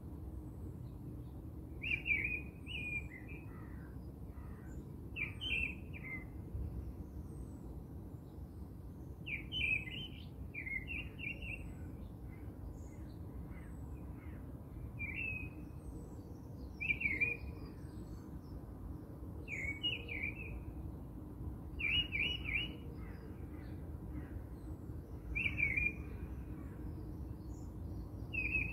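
A bird singing short chirping phrases, repeated every two to three seconds, over a steady low background rumble.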